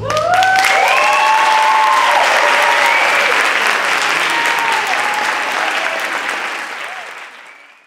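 Audience applauding and cheering, with several whoops rising and falling above the clapping; it fades out near the end.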